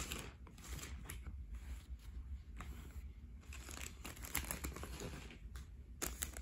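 Irregular rustling and crinkling from handling: a hand brushing over fabric close to the phone's microphone, with a few sharp clicks.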